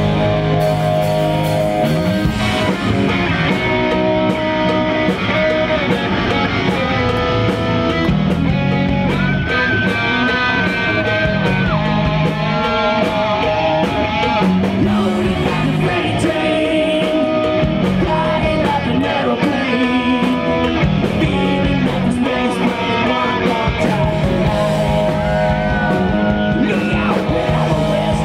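Live hard-rock band playing loud: two electric guitars, bass guitar and drums. The lead guitar holds a long, sustained high note about ten seconds in and again near the end.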